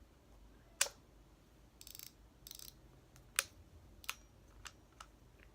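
A large fishing reel being handled: a few sharp clicks and two short ratcheting buzzes from its mechanism.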